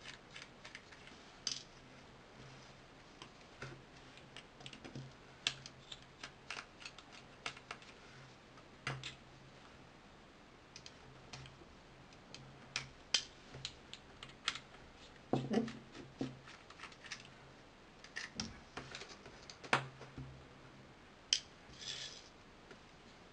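Irregular small clicks and taps of hand-repair work on a mobile phone: a precision screwdriver working on the plastic frame of a ZTE Skate Pro, the plastic housing being handled, and tiny screws clicking into a plastic cup. There are a few louder knocks, about halfway and again a few seconds later.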